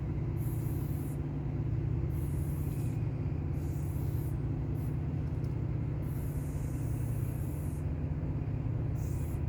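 Aerosol spray-paint can hissing in short bursts, about six, most under a second and one nearly two seconds long, over a steady low hum.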